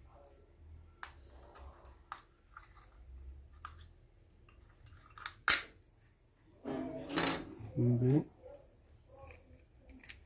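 Small plastic clicks and creaks as a phone charger's plastic case is pried apart by hand, with one sharp snap about five and a half seconds in as the case comes open. Shortly after, a brief wordless vocal sound from a person.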